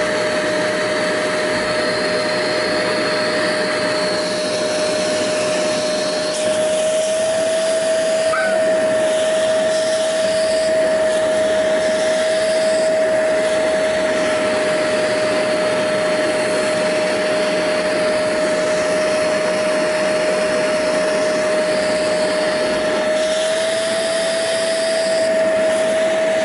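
Hoover Spotless portable carpet and upholstery spot cleaner running, its suction motor giving a steady whine over a rushing noise as it sprays and sucks up a carpet stain. It gets slightly louder about six seconds in.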